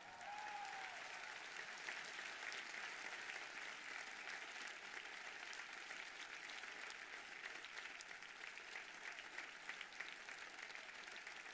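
Large audience applauding steadily: a dense, even wash of many hands clapping.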